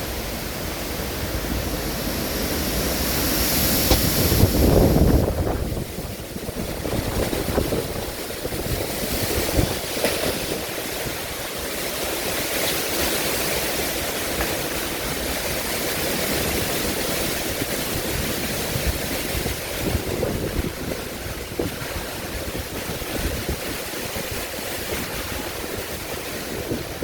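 Storm-force wind blowing in gusts, buffeting the microphone with a low rumble. The strongest gust swells about four seconds in and drops away a second or so later.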